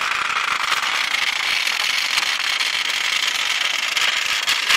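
Many Hexbug vibrating robot toys running at once, a dense steady rattle of their legs buzzing over the plastic habitat and tracks.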